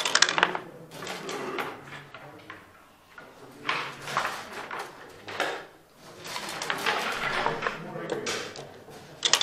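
Backgammon dice and checkers clattering on the board in several sharp bursts of rattles and clacks, the loudest right at the start and again near the end.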